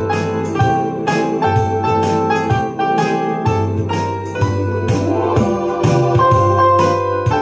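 Electronic home console organ playing a big band tune: melody and sustained chords over low bass notes, with a steady beat of crisp ticks about twice a second.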